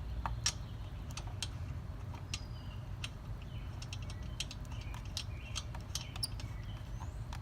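Irregular light clicks and taps of the lug nuts being placed and threaded by hand onto the wheel studs, over a steady low rumble.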